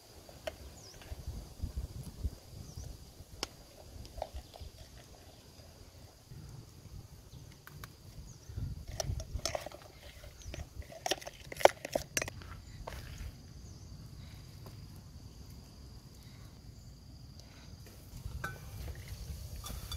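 A metal spoon clicking and knocking against a plastic bowl while bitter melon is hollowed out, with a dense cluster of sharp clicks about halfway through. Underneath runs a low rumble on the microphone and a faint steady insect buzz.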